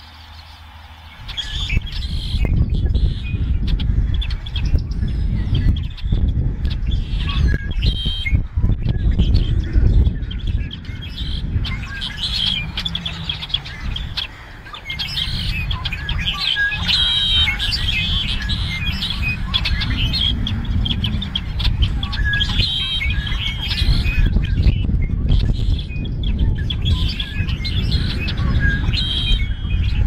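Many small songbirds chirping and calling together. Under them is a strong, uneven low rumble that starts about a second in and briefly drops away around the middle.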